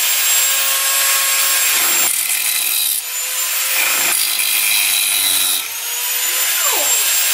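Handheld corded power tool running steadily with a high whine as it cuts into the wooden floor, the sound dipping briefly twice as the tool bites.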